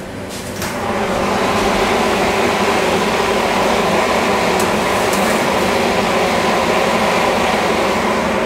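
Fan of a commercial convection oven running with a steady hum, loud with the oven door open; it sets in about half a second in.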